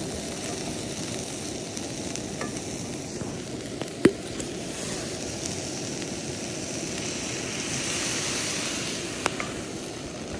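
Ground bison sizzling in a frying pan on a portable gas camp stove. A steady frying hiss swells a little past the middle, with a sharp tap of a utensil on the pan about four seconds in and another near the end.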